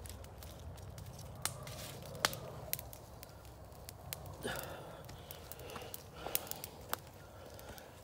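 Dry grass tinder crackling and snapping as it catches light: scattered sharp snaps, with a few short rustling scrapes as the bundle is handled.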